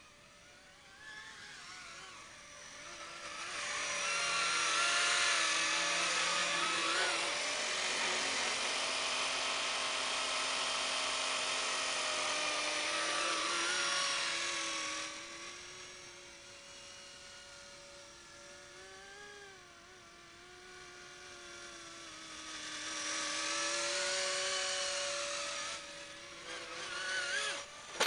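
Revell 1:32-scale Lynx radio-controlled model helicopter in flight, its motor and rotors making a high whine whose pitch rises and falls as it manoeuvres. The whine grows louder twice as the helicopter comes close, and turns uneven near the end as it comes down to the snow.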